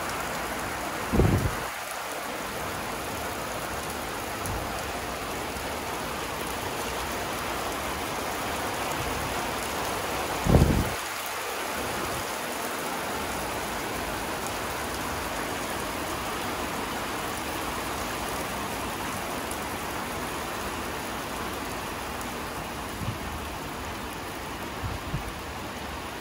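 Steady rain falling on a wet flat rooftop, an even hiss throughout. Two brief low thumps stand out, about a second in and again about ten seconds in, louder than the rain.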